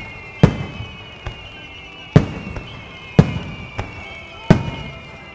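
Aerial fireworks shells bursting: four loud booms roughly a second apart with fainter pops between them, each boom trailing off in a low rumbling echo.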